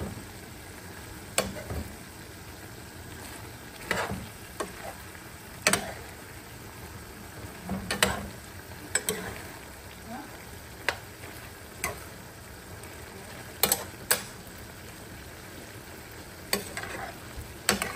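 Pork and liver igado with vegetables sizzling steadily in a sauté pan while a metal spoon stirs it. The spoon scrapes and clinks sharply against the pan about a dozen times, irregularly, every second or two.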